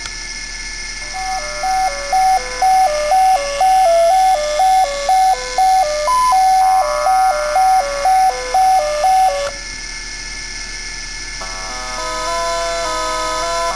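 Commodore 64 SID music emulated by a Parallax Propeller microcontroller: a bright, beepy chiptune melody of short repeated notes stepping up and down, about two to three a second. The melody breaks off about ten seconds in, and a new phrase begins shortly after.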